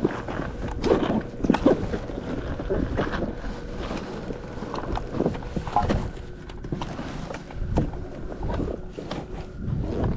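Wind buffeting the microphone and water slapping against the hull of a small bass boat, with scattered knocks and a faint steady whine.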